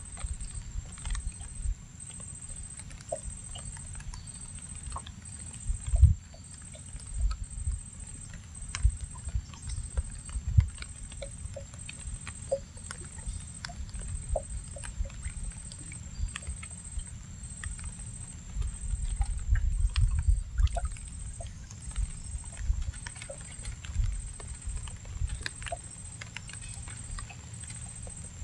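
Water lapping against the hull of a small wooden boat, with irregular soft knocks and low thumps and scattered small clicks.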